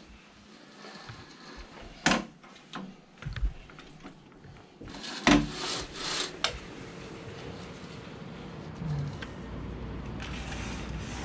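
Sliding glass balcony door being handled and slid open: several knocks and clicks, the loudest about halfway through, then a brief sliding rush. After that comes a steady low hum from the city outside.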